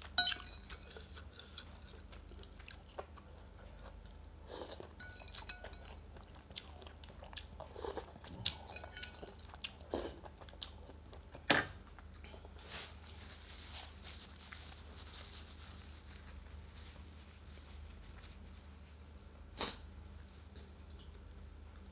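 A person eating rice vermicelli (bihun) soup close to the microphone: soft chewing, with a few sharp clicks of a utensil, the loudest about halfway through and another near the end.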